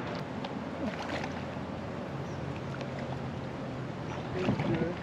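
Water splashing at the river's edge about four and a half seconds in, as a carp is lowered back into the river to be released, over a steady low outdoor rumble.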